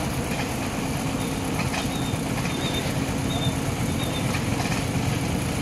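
Heavy diesel truck engine running steadily with a low drone, and a few short high squeaks in the middle.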